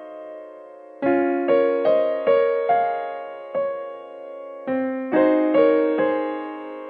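Background music: gentle electric-piano chords and notes, each struck and left to die away.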